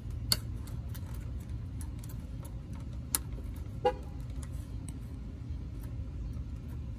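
Fingers working an old plastic wiring-harness clip for a rear wheel speed sensor, giving a few sharp clicks, the loudest about three seconds in. Under them runs a steady low hum, and a brief tone sounds near four seconds in.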